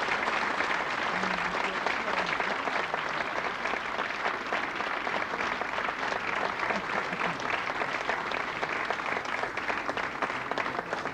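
Theatre audience applauding, a dense steady clatter of many hands clapping that eases a little near the end.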